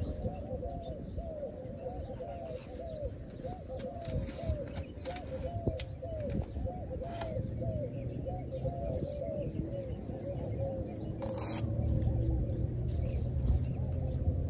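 Birds calling: a fast, even series of short low calls, about two a second, over faint higher chirping. The low calls fade out about two-thirds of the way through, while a low steady rumble grows.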